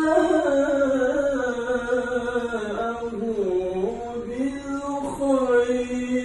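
A male qari reciting the Quran in melodic tilawah style, holding long ornamented notes that waver in pitch; the voice sinks lower about halfway through and climbs back up.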